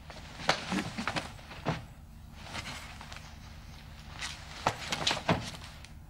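Sounds of a scuffle between two men: clothing rustling, shuffling steps and about seven short knocks and thuds scattered through the struggle.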